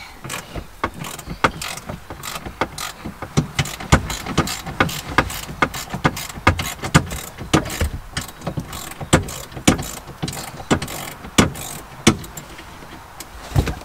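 Socket ratchet wrench clicking in repeated short strokes, about two or three clicks a second, as seat mounting bolts are backed out.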